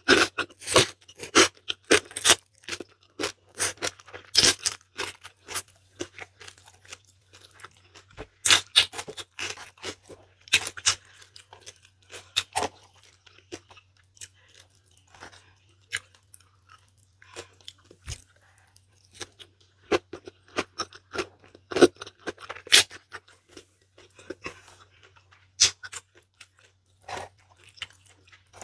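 Close-miked eating: slurping spicy instant noodles and chewing with wet mouth smacks and clicks. The smacks come thick for the first few seconds, then thin out to scattered clicks, over a faint steady low hum.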